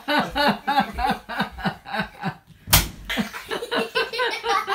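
A single sharp, loud open-hand slap on a bare belly about two and a half seconds in, amid continuous laughter.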